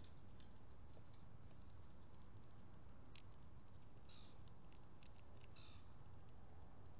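Faint, scattered light clicks and taps at a bird feeder, with two short scratchy sounds about four and five and a half seconds in, over a steady low rumble.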